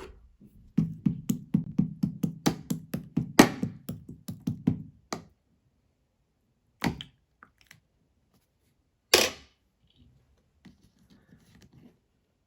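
A quick run of sharp taps or knocks, about four or five a second for some four seconds, followed by two separate louder thumps.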